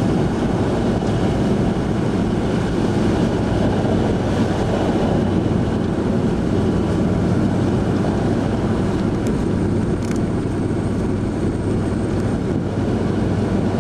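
Steady drone of a car driving, heard from inside the cabin: engine hum with tyre noise rolling over a packed-snow road.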